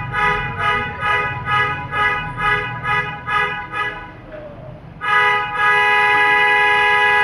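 A horn sounding a quick series of about ten short toots, then, after a short pause, one long steady blast.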